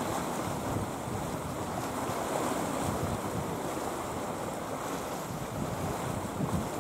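Sea waves washing and wind blowing, with wind rumbling on the microphone: a steady, even wash with no separate splashes or knocks.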